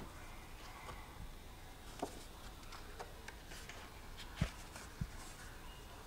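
Hands handling and pressing a sheet of paper onto a paint-covered work table: a few light taps, then two dull thumps near the end.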